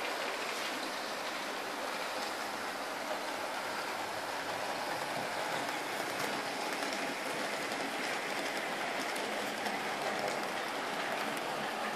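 HO-scale model freight train running past: a steady rolling hiss and clatter of many metal wheels on the track, with fine rapid clicks as the cars pass over rail joints and turnouts.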